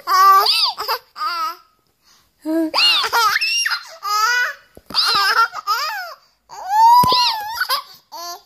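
A baby laughing and squealing with delight, in a string of about five high-pitched bursts with short pauses between.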